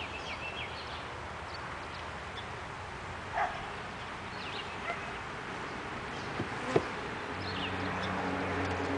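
Honeybees buzzing around an open-air hive, with birds chirping now and then; near the end a closer, steadier bee hum comes in and grows a little louder. A single sharp click sounds shortly before it.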